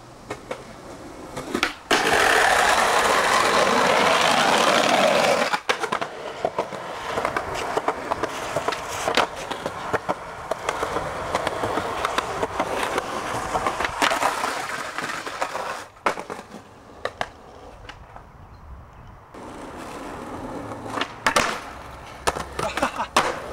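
Skateboard wheels rolling on concrete, with sharp clacks from tricks: tail pops, the board and trucks hitting and grinding on concrete ledges, and landings. It comes in several short clips cut together, with a loud stretch of rolling noise for a few seconds near the start.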